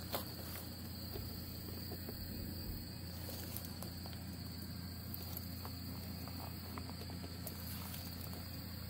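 Insects chirring steadily at a high pitch, with a few faint short clicks from hand tools being worked on a bolt.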